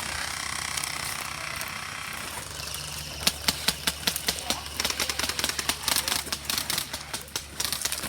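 Airsoft guns firing: rapid, irregular strings of sharp cracks begin about three seconds in and keep going, after a hissing noise at the start.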